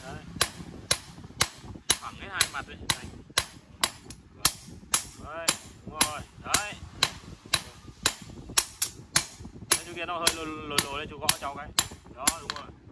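Hand hammer striking a steel knife blade, forged from M30 gun-barrel steel, on a small round anvil stake. The sharp, steady metal blows come at about two a second.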